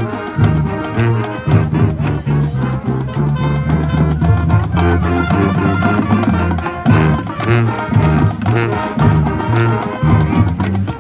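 Marching band playing: brass carrying the melody over a moving bass line, with drum strikes throughout.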